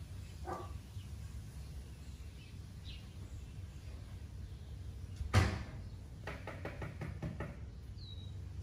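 A single sharp knock about five seconds in, followed by a quick run of clicks or taps, over a low steady rumble. A short squeak comes near the start and a faint high chirp near the end.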